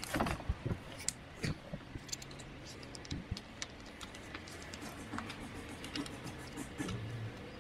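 Irregular small clicks and taps of hand-fitting and tightening the small M3 bolts that hold a bicycle mudguard to a suspension fork.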